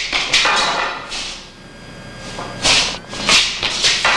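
Butterfly swords clashing and scraping against a long pole during a sparring drill, with scuffing feet: about six short, sharp noisy bursts, a second or less apart.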